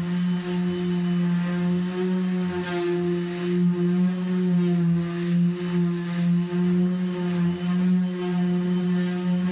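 Cordless random orbital sander running steadily against the top of an old wooden chest of drawers: a steady hum with the hiss of sandpaper on the surface, wavering slightly in level as it is pushed back and forth.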